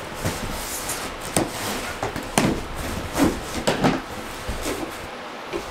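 Cardboard shipping box being handled and opened on a table: a run of irregular knocks, taps and scrapes against the cardboard.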